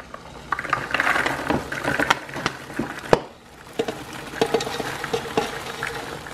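Freshly popped popcorn pouring from a metal pan into a plastic bowl: a dense rustling patter with many small clicks in the first few seconds, one sharp knock about three seconds in, then a lighter, sparser rustle.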